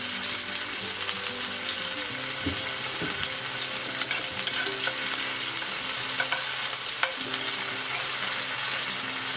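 Minced garlic sizzling in hot oil in a nonstick frying pan, stirred with a spatula that scrapes and taps the pan a few times.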